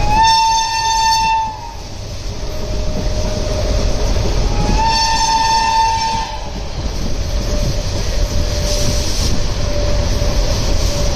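Two blasts of a WAP-7 electric locomotive's horn, each about a second and a half long, the second about four and a half seconds after the first, over the steady rumble and clatter of the train running at speed.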